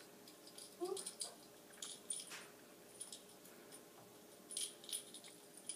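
Faint scattered rustles and light clicks of a string toy being jiggled over a carpeted cat tree and batted at by a kitten, with a brief rising squeak about a second in.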